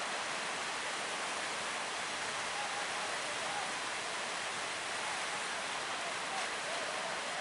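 Steady rushing noise of breaking waves and surf, even and unbroken throughout.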